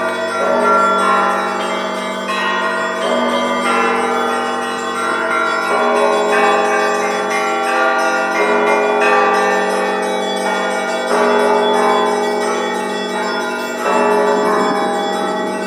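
Russian Orthodox church bells rung in a continuous peal (zvon) by a single ringer: fast strokes of small bells over sustained ringing of larger ones, with a deeper bell struck about every three seconds.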